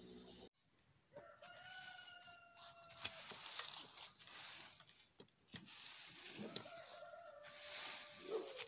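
A rooster crows twice, each a long held call with a slight fall at the end. Under it comes the rustle and scrape of a rake dragged through dry fallen leaves.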